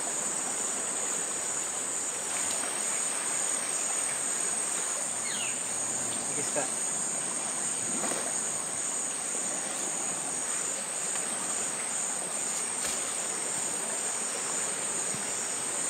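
Steady high-pitched chorus of forest insects, a continuous shrill drone with a faint pulsing.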